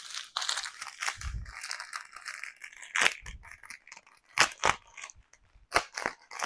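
Clear plastic packet crinkling as it is handled, with continuous crackling for about three seconds, then a few separate sharp crackles.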